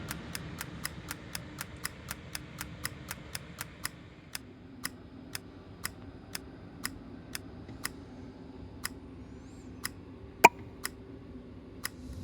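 A steady series of sharp ticking clicks, about four a second, slowing to about two a second after about four seconds, over a faint steady hum; one much louder click comes near the end.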